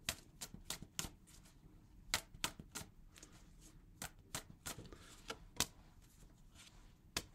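A deck of tarot cards being shuffled by hand: soft, sharp card snaps in short runs of three or four, with pauses between.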